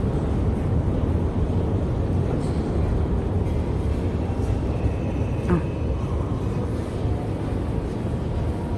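Steady low rumble of a metro station hall, a dull even roar.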